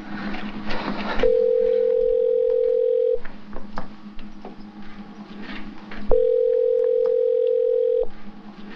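Telephone ringback tone heard through a landline handset: a steady single-pitched tone sounds twice, each about two seconds long with about three seconds between. It is the signal that the called phone is ringing and nobody has answered yet.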